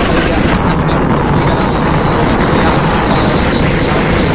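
Steady, loud wind rush on the microphone with vehicle road noise from riding along in the open air. A thin high whine wavers through it.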